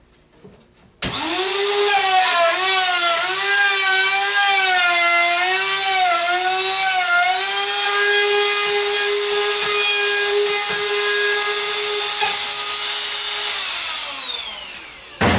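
Electric router started about a second in, cutting a door-latch mortise through a template into a door edge: its motor whine dips and wavers under the load of the cut, then runs steady at full speed. Near the end it is switched off and the pitch falls as it winds down, followed by a sharp knock.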